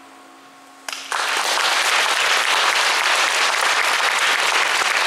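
The last chord of an acoustic guitar fades away, then about a second in an audience breaks into applause that carries on steadily.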